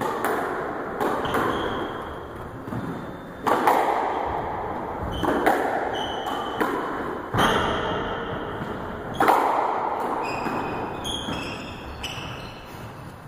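Squash ball being struck by rackets and hitting the walls during a rally, a sharp knock every second or two, each ringing on in the enclosed court. Short high squeaks, typical of court shoes on the wooden floor, come between the shots in the middle and later part.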